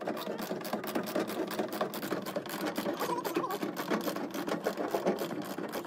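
Socket ratchet clicking rapidly and steadily as it is worked back and forth to undo a bolt.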